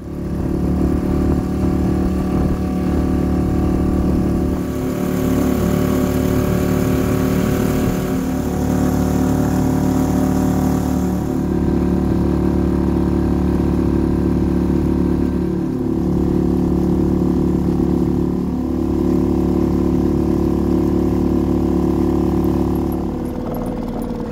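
Small outboard motor pushing an inflatable dinghy, running steadily at cruising speed, heard from aboard. It throttles back near the end as the dinghy nears the moored boat.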